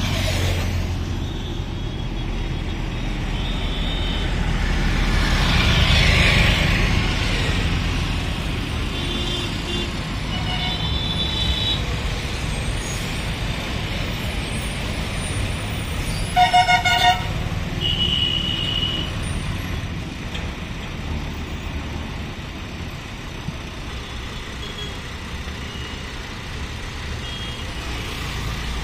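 Steady highway traffic of trucks, buses and motorcycles passing, engines running over tyre noise, swelling as a heavy vehicle goes by close around six seconds in. Short horn toots come and go throughout, the loudest being three quick honks about sixteen seconds in.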